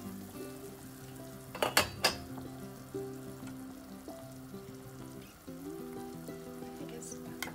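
Chicken soup bubbling at a hard boil in a stainless steel pot, a metal ladle stirring through it. A few sharp metal clinks come about two seconds in, with one more near the end.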